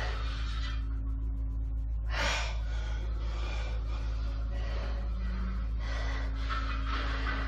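A man's forceful breathing as he strains through a set of neutral-grip cable lat pull-downs, a breath about every second, with one sharper gasp about two seconds in. A steady low hum runs underneath.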